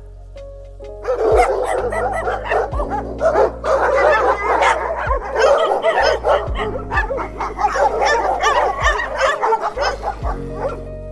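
A border collie yipping, whining and barking in a rapid, continuous string of calls that bend up and down in pitch, from about a second in until near the end, over background music.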